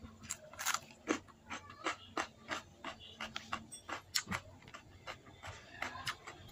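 Close-miked eating: chewing with mouth clicks and lip smacks, an irregular run of short clicks about two or three a second.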